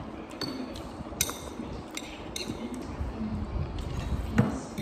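Metal fork clinking and scraping against a ceramic bowl while noodles are eaten: a few light, scattered clinks, the sharpest about a second in, and a louder knock near the end.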